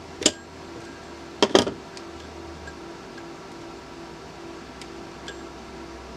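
Small handling clicks and knocks from working on the phone: one sharp click near the start, a quick cluster of louder knocks about a second and a half in, then a few faint ticks, over a steady low hum.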